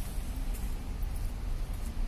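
Outdoor street ambience: a low, fluctuating rumble of wind buffeting the handheld microphone, mixed with distant road traffic.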